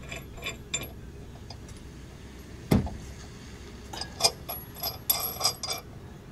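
A bolt being threaded by hand into the steel head of a Husky Centerline weight distribution hitch: light metal clicks and scrapes, one dull knock a little before halfway, and a cluster of sharper metallic clinks near the end.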